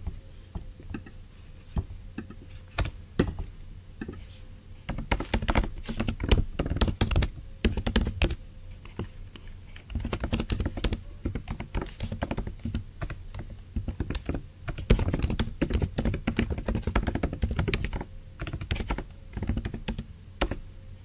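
Typing on a computer keyboard: irregular runs of quick keystrokes broken by short pauses.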